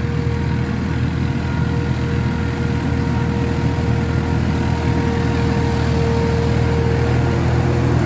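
Hattat orchard tractor's diesel engine running steadily as it drives out of an orchard row, with a steady whine over the engine note. It grows a little louder as the tractor comes near.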